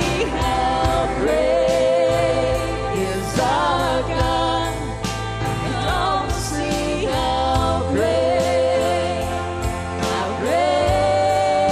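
Live worship band playing, with acoustic and electric guitars, bass guitar and drums, and a woman singing the lead melody in long held notes.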